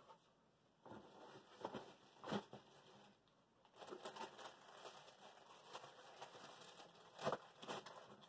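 Faint rustling and crinkling of cardboard and plastic packaging being handled, with a few soft knocks, the sharpest about seven seconds in.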